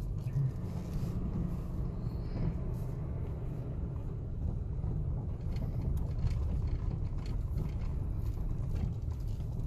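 A vehicle's engine running with a steady low rumble.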